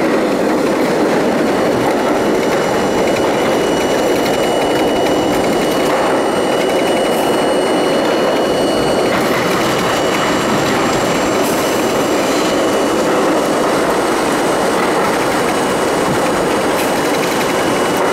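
Budd-built R32 subway train running at speed through a tunnel, heard from inside the front car: a steady, loud rumble of wheels on rail with a few faint high steady tones above it.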